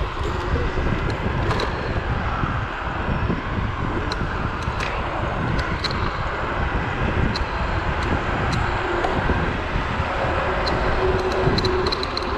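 Steady rush of wind on the microphone and road rumble from a Zero 10x electric scooter riding fast, with scattered sharp clicks and rattles from the scooter, and a faint steady whine near the end.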